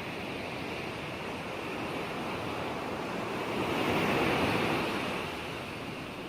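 Ocean waves breaking on a shore, a steady rushing surf that swells into a louder wash about four seconds in and then recedes.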